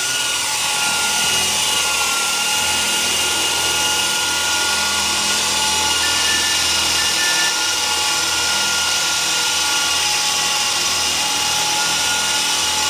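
ESky Honey Bee V2 fixed-pitch electric RC helicopter hovering: a steady high-pitched motor whine over a rushing hiss, holding one pitch throughout.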